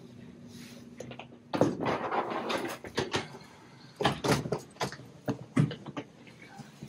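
Hotel room door being opened and handled, with a series of clicks and knocks from its latch and handle and the wheeled suitcase being brought through.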